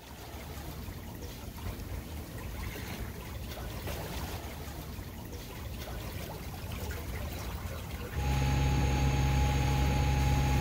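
Soft, steady wash of water moving past a sailboat's hull. About eight seconds in, it changes abruptly to a louder, steady engine hum with a fixed drone.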